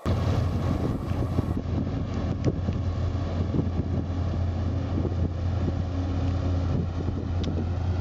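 Passenger ferry Ferry Toshima passing close by under power: a steady low engine rumble, with wind buffeting the microphone.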